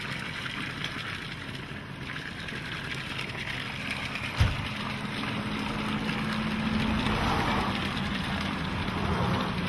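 Spring water pouring from a pipe spout and splashing onto rocks and ground below, a steady rushing splash. A single thump about halfway through, and a faint low steady hum in the second half.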